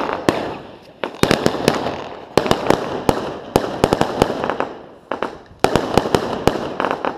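Cyber Shot consumer firework cake firing its shots: a quick cluster of sharp cracks and bangs about every second, each fading into crackle before the next.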